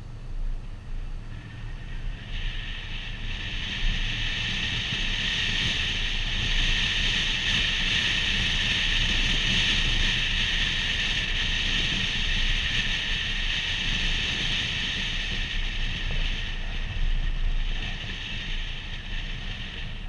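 Wind and road noise on a camera mounted on the hood of a moving vehicle: a steady high rush over a low rumble that builds a couple of seconds in as the vehicle gathers speed and eases off near the end as it slows.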